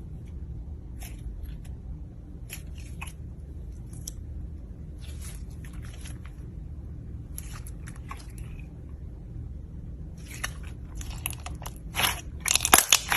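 Slime being handled, giving short clusters of crunchy, crackling pops every second or two, louder near the end, over a steady low hum.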